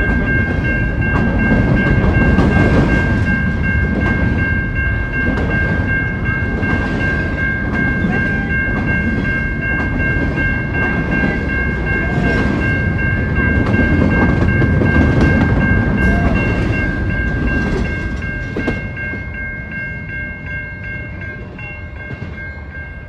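Double-stack container freight train rolling past at a grade crossing, a heavy rumble with wheel clatter, while the crossing bell rings steadily over it. The train noise falls away about three-quarters of the way in as the last cars pass, and the bell stops near the end.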